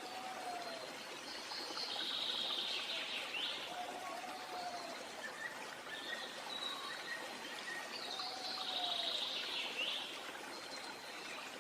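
Birds calling over the steady rush of running water, with short calls recurring about every four seconds.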